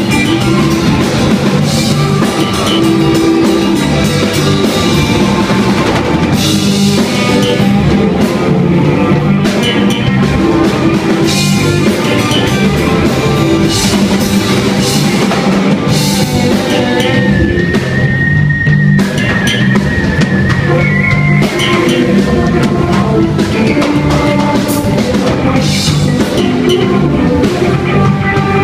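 Live rock band playing: electric guitar, electric bass, drum kit and keyboard together, with a high note held for a couple of seconds about two-thirds of the way through.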